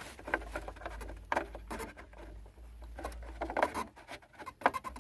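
Small irregular clicks and scrapes of hands working a Chrysler 300's rear turn signal bulb assembly, screwing it back into place after a new bulb has gone in.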